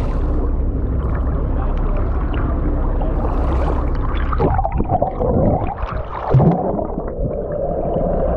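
Sea water sloshing and gurgling around a camera held at the surface as it goes under, with a burst of splashing and swirling about halfway through, then a steady muffled underwater hum near the end.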